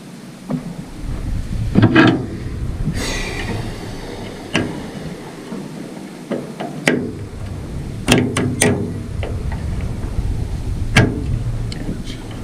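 Scattered metal clicks and taps of pliers working on a swivel bench vise, over a steady low rumble.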